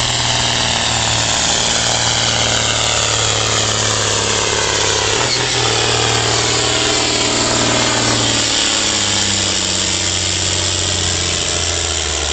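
Ford TW-15 tractor's six-cylinder turbo diesel running flat out under heavy load while pulling a sled. Its pitch sinks slowly and drops lower after about eight seconds as the engine is lugged down by the sled.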